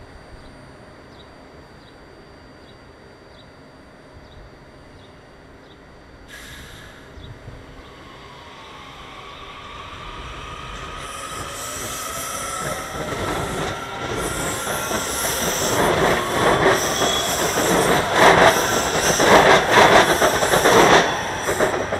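WMATA Kawasaki 7000-series Metrorail train departing: a short hiss about six seconds in, then its motors' whine gliding up in pitch as it accelerates. This builds into loud, steadily growing wheel-on-rail noise with rapid clacking as the cars pass, dropping off near the end.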